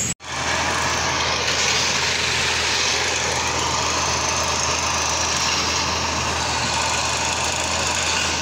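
Diesel engine running steadily at a railway station, a low hum under a broad even hiss, after a brief cut right at the start.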